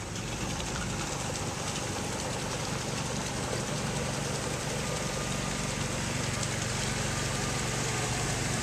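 Engine of a tracked amphibious all-terrain vehicle running steadily as it wades through a flooded mud hole, growing gradually louder as it comes closer.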